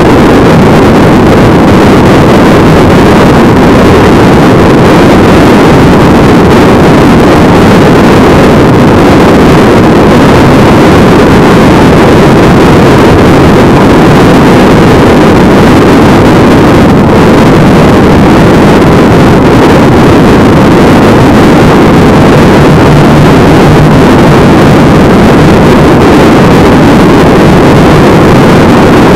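Steady, loud rush of wind on a vehicle-mounted camera's microphone at highway speed, mixed with engine and road noise.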